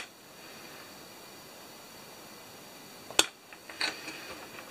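Wire cutters snipping through 16 gauge silicone wire: one sharp snip right at the start and another about three seconds in, followed by a couple of light ticks. A faint steady hiss runs underneath.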